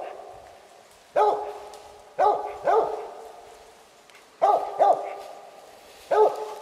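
A cur dog barking up a tree: a treeing bark that marks where he thinks a squirrel has gone. There are six short barks, one to two a second and often in pairs, each trailing off in an echo.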